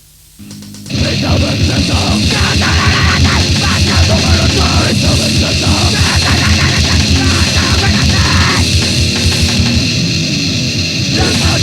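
Grindcore band on a demo tape, loud and heavily distorted. It comes out of tape hiss with a brief low note, and the full band crashes in about a second in with very fast, dense drumming. The sound thins for a couple of seconds near the end before the full band returns.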